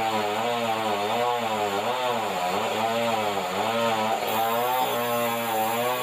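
Band sawmill running: a steady machine hum with a clear pitch that wobbles up and down about once a second, over a rushing noise.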